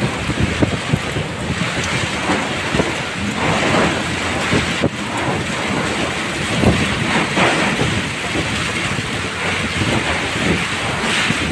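Storm winds gusting hard against the microphone, with irregular low buffeting surges over a steady hiss of driving rain.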